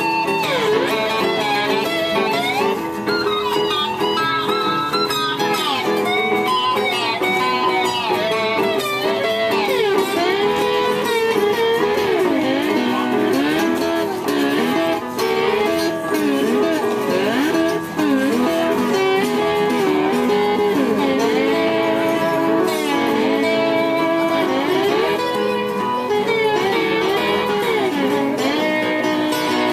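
Small live instrumental jam: a hollow-body electric guitar plays a lead line full of bending notes over acoustic guitar and electric keyboard.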